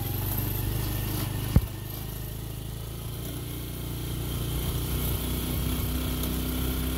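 Engine of a moving vehicle running steadily, heard from aboard, with one sharp knock about one and a half seconds in. The engine note climbs a little past the middle, then holds.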